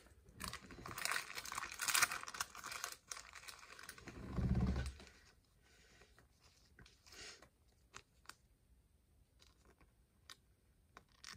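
Crinkling and rustling of plastic packaging, as a card sleeve is taken out and handled. A low thump comes about four and a half seconds in, followed by scattered faint clicks and taps.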